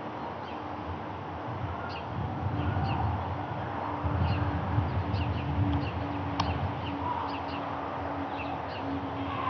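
Small birds chirping: many short, high chirps scattered throughout, over a low rumble that grows louder about two seconds in.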